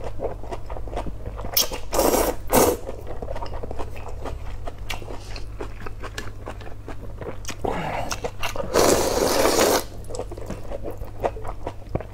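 Close-miked eating sounds: rice noodles in soup slurped in loud noisy bursts, about two seconds in, again just after, and a longer one about nine seconds in, with wet chewing and small mouth clicks between them. A low steady hum runs underneath.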